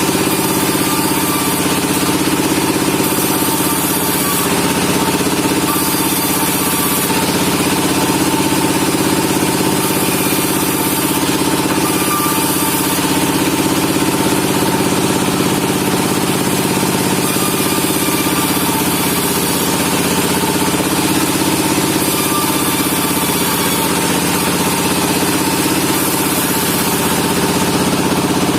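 Sawmill machinery, the engine-driven saw rig, running steadily with a constant hum that wavers slightly in pitch.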